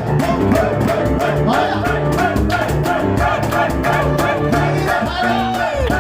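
Live instrumental music from a piano-and-cajón duo: a fast, repeated piano figure over a driving cajón beat.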